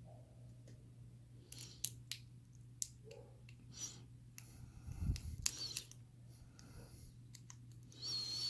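Scattered small clicks and light scraping as a shim is worked into a dimple lock, over a steady low hum.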